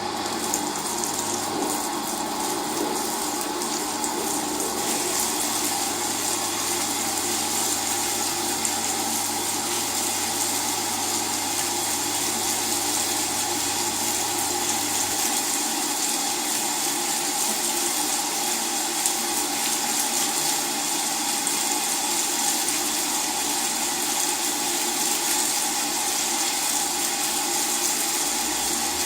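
Steady rush of water in an LG WT-R852 direct-drive washing machine, with a low hum that stops about halfway through.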